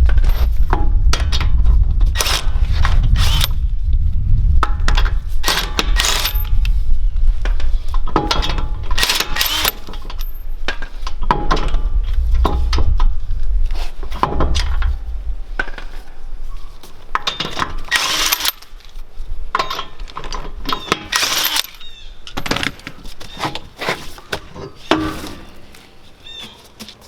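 Earthquake XT cordless 1/2-inch impact wrench at work on lug nuts, a dense hammering rumble with metal clanks. About halfway the hammering stops, leaving scattered metallic clinks of lug nuts and sockets that fade toward the end.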